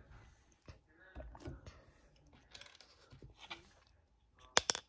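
Quiet handling sounds close to the microphone: scattered soft clicks and knocks, with two sharp clicks just before the end.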